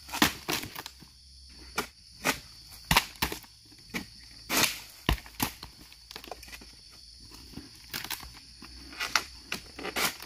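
Pole-mounted harvesting sickle hacking at the frond bases and fruit-bunch stalk of an oil palm: a string of sharp, irregular chops and crunches.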